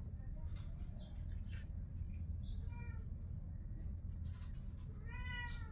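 A kitten meows twice: a short, high meow about halfway through and a longer, louder one that rises and falls near the end. Scattered light clicks and a steady low hum run underneath.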